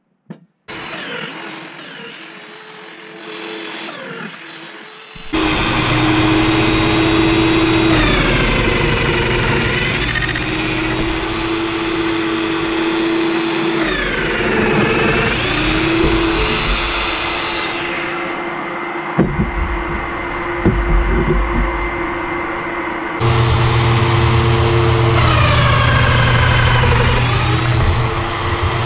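Festool Domino DF 500 joiner running with its dust extractor, cutting loose-tenon mortises in poplar. A steady extractor hum starts under a second in, and the louder motor joins about five seconds in. Its whine sags briefly several times as the cutter plunges into the wood. A few knocks sound in a quieter stretch just past the middle, then the tool runs again.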